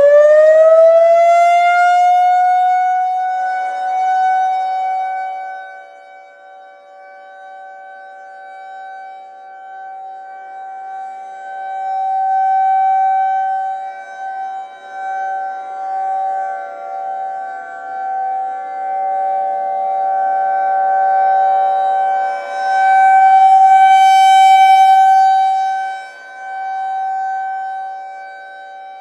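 Federal Signal 2001-SRNB outdoor warning siren sounding a steady Full Alert tone: its pitch finishes winding up in the first two seconds, then holds level. The sound swells and fades about every twelve seconds as the siren head rotates.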